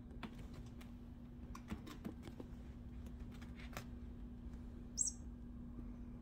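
Cat claws catching and scratching on a strip of carpet padding fixed to a cat tree: a scatter of light scratches and ticks over a steady low hum. A brief high chirp about five seconds in is the loudest sound.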